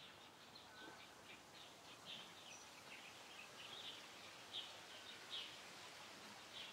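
Faint outdoor ambience with small birds chirping: short, irregular high chirps over a quiet hiss.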